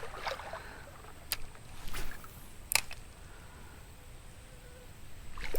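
A few short, sharp clicks or taps, about a second and a half, two seconds and nearly three seconds in, the last the loudest, over a faint steady hiss.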